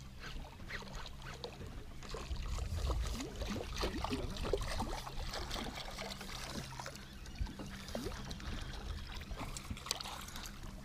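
Small waves lapping and splashing against the side of a fishing boat, a patter of small irregular splashes over a low steady hum.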